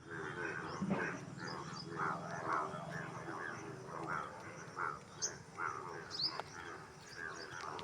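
Chorus of frogs calling, many overlapping croaks repeating every fraction of a second, over a low steady drone.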